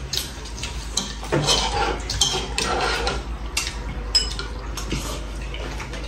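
A metal spoon and chopsticks clinking and scraping against ceramic bowls in irregular light clicks, with the sounds of people eating soup.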